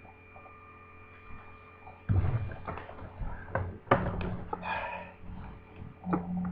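Steady amplifier hum, then a run of thumps and clunks as a plugged-in electric guitar is picked up and handled. A low string note rings under the handling noise and swells near the end.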